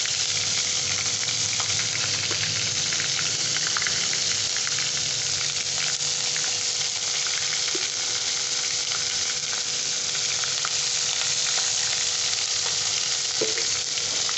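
Ginger-garlic paste frying in hot oil with whole garam masala: a steady sizzling hiss with small crackles, stirred now and then with a metal slotted spoon.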